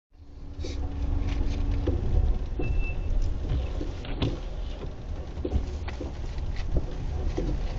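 Car driving over an uneven surface: a steady low rumble with irregular sharp knocks from the front suspension. The knocks come from freshly replaced front suspension parts (struts, springs, control arms, stabilizer links) that started knocking within a week.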